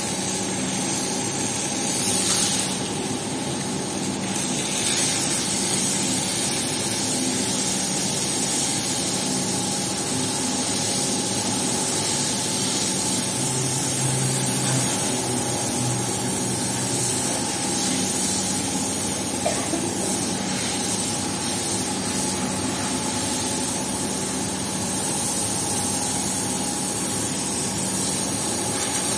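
A strong jet of water from a hose hisses and splashes across a wet tiled floor without a break, over a steady machine hum.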